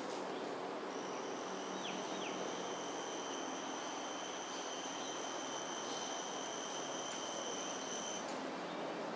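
An insect's steady, high-pitched whine starts about a second in and stops abruptly near the end, over a constant background hiss of ambient noise. Two short falling chirps come about two seconds in.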